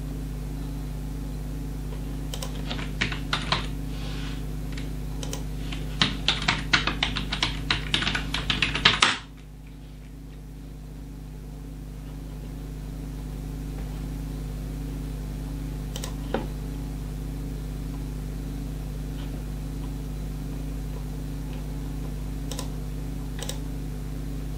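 Typing on a computer keyboard: a quick run of keystrokes for several seconds, then a few single clicks later on, over a steady low electrical hum.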